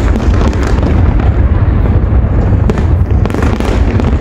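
Large aerial fireworks display: many shell bursts in quick succession, booms and sharp cracks running together into a continuous loud barrage.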